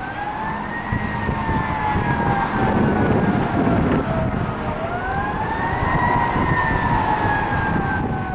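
Fire engine's Federal Q2B mechanical siren wailing: it winds up quickly, coasts slowly down, then winds up and coasts down a second time, over low traffic and engine rumble.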